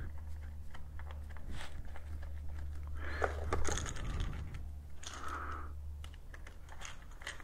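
Light, scattered clicks and taps of small metal screws and a hand tool being handled while the clutch cover screws are started by hand, over a low steady hum.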